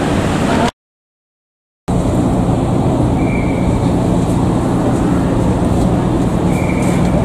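Car ferry's engines running with a steady low drone under wind and water noise, heard from the deck while the ship manoeuvres into its berth. The sound drops out to complete silence for about a second shortly after the start. Two faint, short, high beeps sound in the second half.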